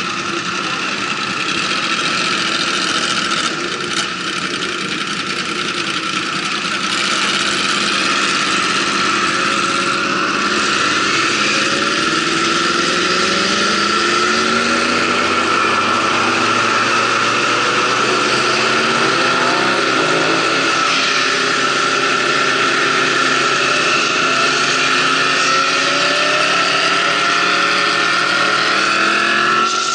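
Motorcycle engine heard from on board while riding, its pitch rising again and again as it accelerates through the gears from about ten seconds in, over a steady rush of wind.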